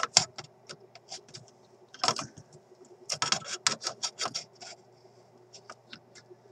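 Metal wire cutters clicking and scraping against the steel chassis and tube-socket lugs of an old valve radio as they are worked into a tight spot: a quick run of small, irregular metallic clicks, busiest about two to four and a half seconds in.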